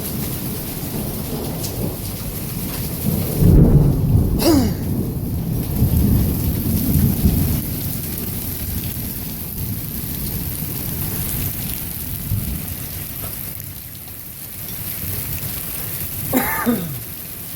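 Thunderstorm with steady heavy rain and hail coming down, and a loud rolling thunderclap that rumbles from about three seconds in for roughly four seconds. A brief falling pitched sound is heard near the end.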